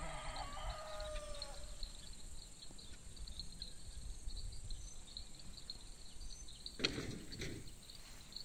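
Quiet rural field ambience: an animal gives one drawn-out, slightly falling call at the start, while a faint, steady high chirping goes on throughout. A short bump comes about seven seconds in.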